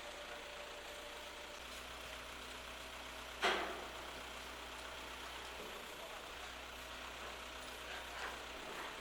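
Heavy vehicle diesel engine idling steadily, with one short, sharp noise about three and a half seconds in and a couple of faint knocks near the end.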